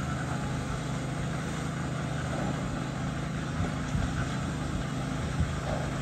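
A motor running with a steady low drone, over the background noise of a building site, with a few brief knocks about halfway through and near the end.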